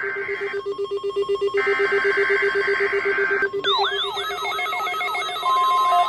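Several NOAA weather alert radios going off for a Required Weekly Test: buzzing bursts of the EAS SAME digital header sound twice over one radio's fast, steady low beeping. About three and a half seconds in, the low beeping stops and a radio's whooping siren alarm starts; a steady alarm tone joins it about a second later.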